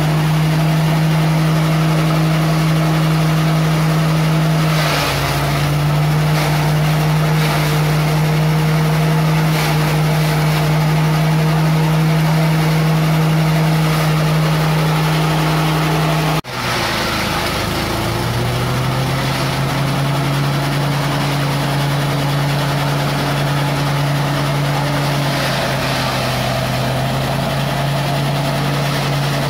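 Small single-cylinder petrol engine running a corn-cob chopper machine at a steady speed, a constant engine hum. About halfway it breaks off abruptly and resumes at a lower pitch.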